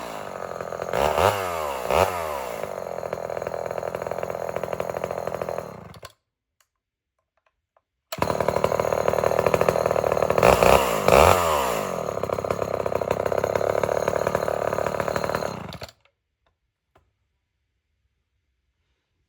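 Two-stroke chainsaw running and being revved up and down several times. It cuts off abruptly about six seconds in. After two seconds of silence it runs and revs again, then stops short about three seconds before the end, leaving near silence.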